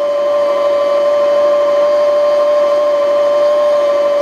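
Janome 805 portable sewing machine motor running at its top speed setting to wind a bobbin: a steady high whine.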